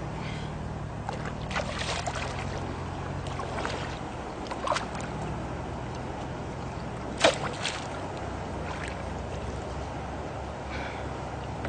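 Water sloshing with a steady low hum, broken by scattered sharp knocks and clicks; the loudest knock comes about seven seconds in.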